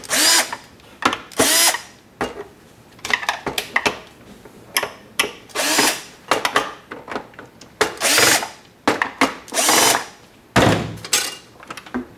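Cordless drill/driver backing screws out of a gummed tape dispenser's plastic cover, running in several short bursts of about half a second each, each with a rising whine.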